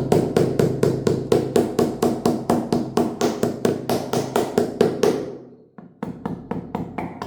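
Hammer blows in a fast, even run of about five strikes a second, stopping about five seconds in, followed by a few scattered knocks.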